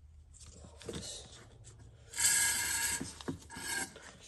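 Rubbing and scraping handling noises from a small plastic syringe and oil container being worked by hand. About two seconds in comes a louder scratchy rasp lasting under a second, followed by a few short clicks.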